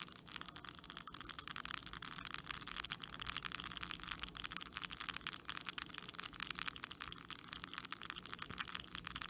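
Termites in wood: a dense, irregular crackle of many small, rapid clicks and ticks.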